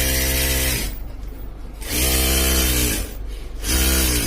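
Juki DDL-8700 industrial lockstitch sewing machine running in three short bursts of stitching, each slowing as it stops. It is running normally again now that error 924 has been cleared by removing resistor R26 on the power board.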